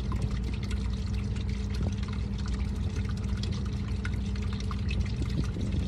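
Fried tofu and garlic-chili sauce sizzling in a frying pan: a steady sizzle with many small crackles and pops, over a constant low hum.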